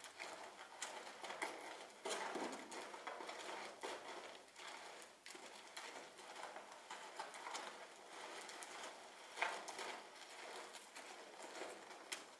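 A horse's hooves and a person's feet stepping and scuffing in soft sand footing: faint, irregular shuffles with an occasional sharper knock.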